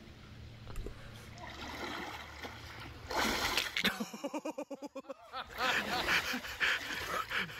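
A man drops into cold creek water about three seconds in with a sudden splash, then thrashes about, splashing, while letting out rapid, repeated cries from the cold shock.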